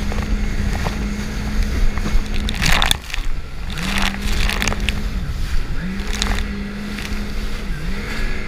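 Jet ski engine running hard at a steady pitch while the craft pounds over choppy sea, with splashes of spray against the hull. The engine note drops and recovers about three times, near three, five and seven and a half seconds in.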